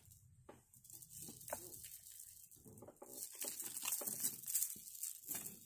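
Strands of rice-shaped freshwater pearls being picked up and handled, the beads lightly clicking and rustling against each other and the table in scattered faint taps.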